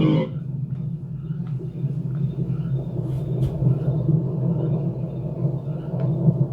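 A steady, deep ambient rumble from a film's sound-effects track, with a few faint clicks and ticks over it.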